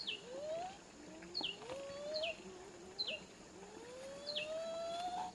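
A bird calling: short, sharp notes that drop steeply in pitch, repeated five times about a second apart. Beneath them, a fainter, lower whine rises slowly in pitch several times.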